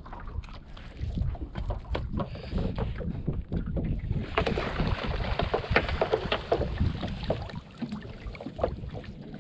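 A gillnet being hauled by hand over a boat's gunwale: wet net rustling and clicking, with water splashing and wind buffeting the microphone. From about four seconds in, a louder splashing hiss with many sharp clicks.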